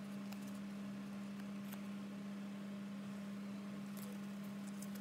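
Steady low electrical hum with a few faint light clicks and rustles as thick paper stickers are shuffled by hand.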